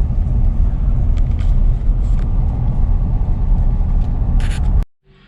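Steady low rumble of a vehicle driving on the road, engine and road noise, with a few faint clicks. It cuts off abruptly near the end, giving way to a much quieter background.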